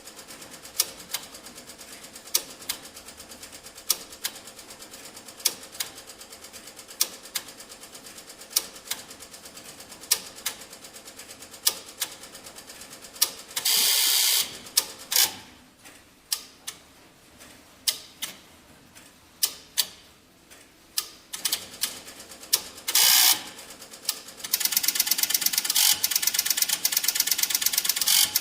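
Teletype machine running: fast, steady fine ticking with louder clacks about every half second, then a loud short burst of clatter about halfway through and another near the end, with scattered clacks in between, before it breaks into loud, fast, continuous clattering for the last few seconds.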